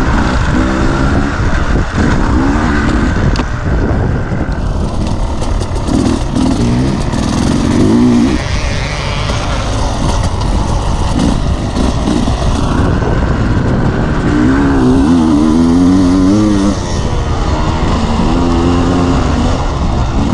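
Dirt bike engine heard from on board, its pitch climbing and dropping again and again as the throttle is worked and gears change over rough trail, over a steady low rumble.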